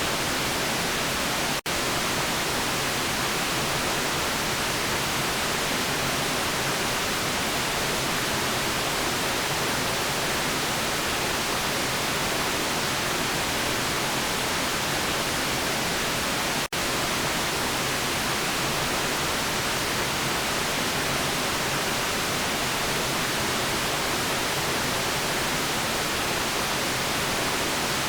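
Steady hiss of generated white noise, even across all pitches with no tones in it. It cuts out for a split second twice, about a second and a half in and again about sixteen and a half seconds in.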